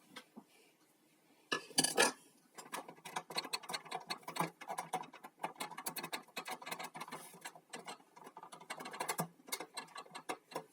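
Light clicking and rattling of hands working on a Janome 525S sewing machine's mechanism and casing parts, with a couple of louder clatters about two seconds in and then a dense run of small clicks.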